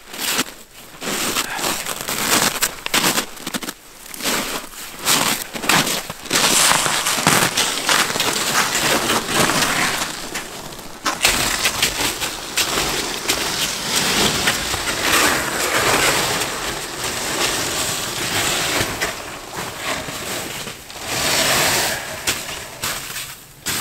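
Boots crunching in snow close by, mixed with the rustle and knocks of rope and gear being handled at a sled, in a dense, uneven run of crunches.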